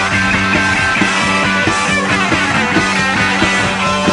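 Punk rock band playing live in a passage without singing: loud electric guitar chords over a steady drum beat.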